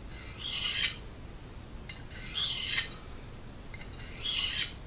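A knife edge drawn across a small pocket sharpening stone: three slow, scratchy honing strokes about two seconds apart, each swelling in loudness as it goes.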